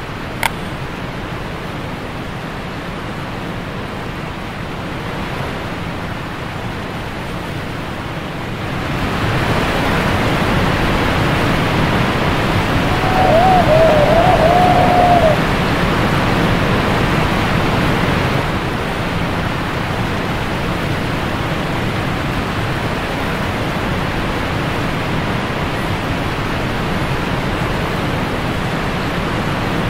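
Rushing river whitewater around a raft: a steady rush that swells about a third of the way in as the raft runs into the rapids, is loudest around the middle, then eases slightly.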